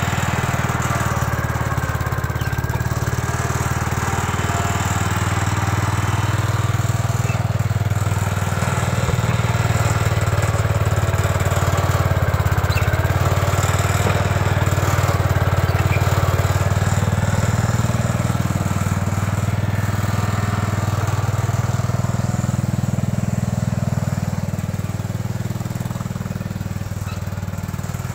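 The 1968 Gravely Commercial 12 walk-behind tractor's Kohler engine runs at a steady speed while the tractor pushes snow with a front plow blade. It barely labours under the load, and it gets a little quieter near the end.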